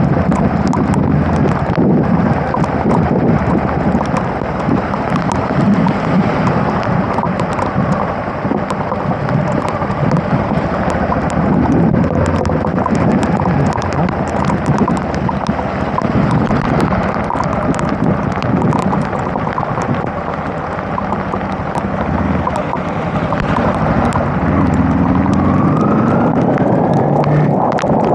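Kawasaki KLE 250 motorcycle riding through heavy rain: a steady rumble of wind and rain on the microphone, with many small taps of raindrops. Near the end, an engine note rises as the bike speeds up.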